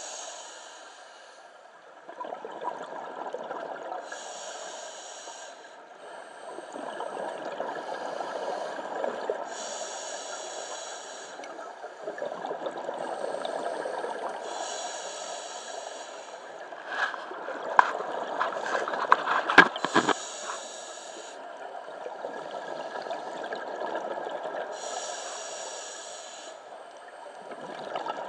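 Scuba diver breathing through a regulator underwater: a short hiss on each inhale about every five seconds, alternating with longer bubbling exhales. A cluster of sharp clicks comes about two-thirds of the way through.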